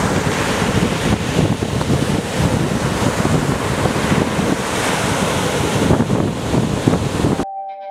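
Ocean surf breaking and washing over rock ledges, a continuous surging rush, with wind buffeting the microphone. Near the end it cuts off abruptly and sustained synthesizer-like music begins.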